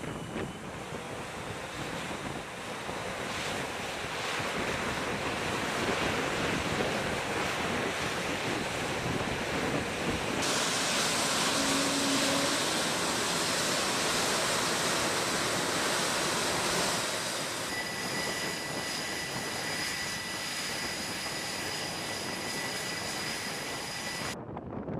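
Aircraft-carrier flight-deck noise: steady rushing wind and jet-engine roar. The hiss turns abruptly brighter about ten seconds in, and a steady high whine joins in for the later part.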